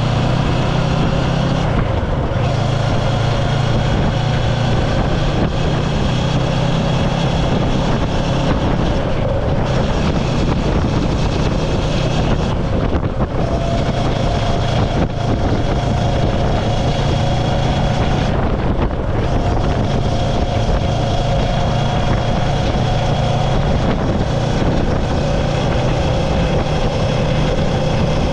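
Steady engine drone at an even level, with a strong low hum and a few held higher tones.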